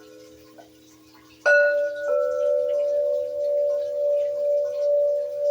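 Metal singing bowl struck about a second and a half in, then ringing on in a long sustained tone that wavers slowly in loudness. Before the strike, an earlier ring fades away faintly.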